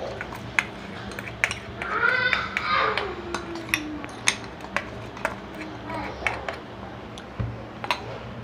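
Jaggery syrup boiling hard in a pan, its bubbles popping in irregular sharp clicks about once or twice a second over a low steady hum. A brief voice-like sound falls in pitch about two seconds in.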